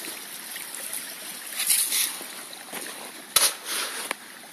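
River water running through a cleared culvert channel, a steady rushing hiss. There are brief louder bursts about two seconds in and a sharp knock about three and a half seconds in.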